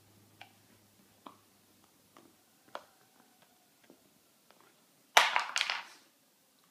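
Dog gnawing on a chew treat: scattered faint clicks and crunches, then a louder burst of noise lasting under a second about five seconds in.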